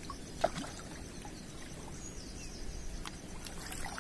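Water splashing and lapping at the surface as a hooked fish, a carp, thrashes close to the bank, with a few small sharp splashes over a steady wash.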